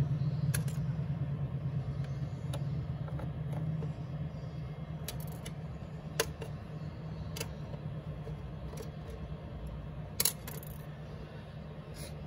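Small metal clicks and taps at uneven intervals, typical of removing screws from a MacBook Pro's aluminium bottom case with a small screwdriver and setting them down. Under them a steady low hum slowly fades.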